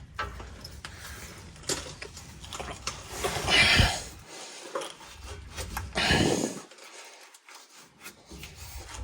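Handling noise and metallic clinks as rubber exhaust hangers and tailpipe hardware are worked into place under the truck, with two louder rushes of noise about three and a half and six seconds in.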